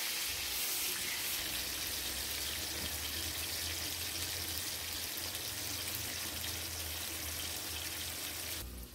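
Sliced vegetables frying in a wide pan of hot oil: a steady sizzling hiss that cuts off suddenly near the end.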